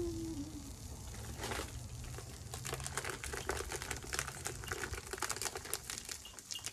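Clear plastic wrapper crinkling as it is handled and opened by hand, a quick irregular run of small crackles from about two seconds in, over a low steady hum.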